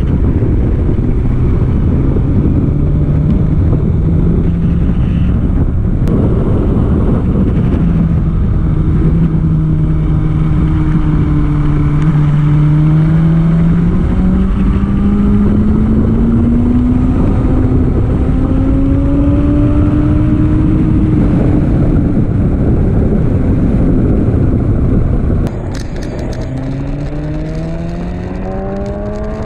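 BMW S1000RR's inline-four engine pulling through a corner sequence under heavy wind noise, its pitch climbing slowly for some seconds and then easing off. A few seconds before the end the sound cuts to a quieter take in which the engine revs up more steeply.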